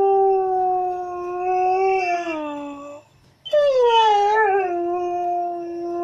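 A dog howling: one long steady howl that drops in pitch and ends about three seconds in, then after a short breath a second long howl that starts higher and settles onto a steady note.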